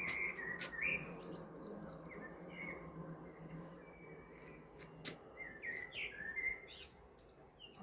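Small birds chirping and singing, with short chirps scattered all through, over a steady low hum and a few sharp clicks.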